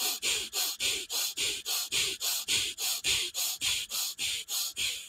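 Rapid, forceful breathing in and out through the nose (the 'fire breath' of breathwork), a quick, even rhythm of about four breaths a second that stops near the end.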